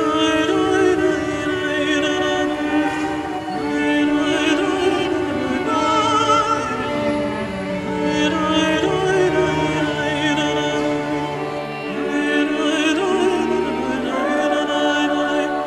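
Background music: a slow song with a sustained, wavering singing voice over held instrumental notes.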